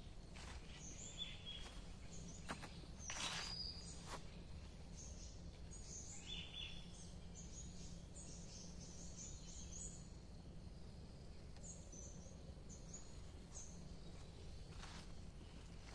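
Birds chirping and calling: many short, high chirps scattered throughout, over a low steady rumble. A few soft clicks and a brief rustle come in the first few seconds.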